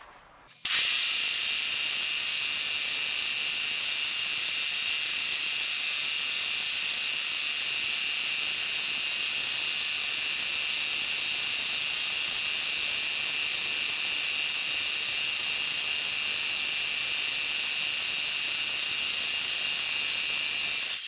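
Milling machine spindle running a boring head through a bore, a steady hiss with a high, constant whine, sped up in fast-forwarded footage. It starts abruptly just after half a second in.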